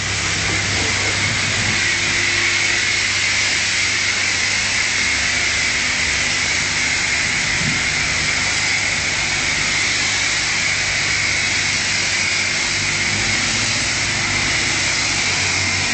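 High-pressure car-wash wand spraying a steady jet of water onto a car's body: a continuous loud hiss with a steady low hum underneath.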